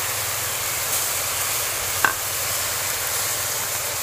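Steady background hiss with a low hum underneath, and one brief faint click about two seconds in.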